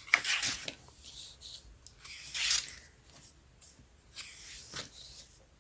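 Pages of a photobook being turned by hand: a few short paper swishes and rustles.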